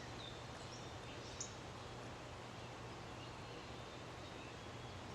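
Quiet outdoor ambience: a steady low hiss with a few faint songbird chirps, the clearest about one and a half seconds in.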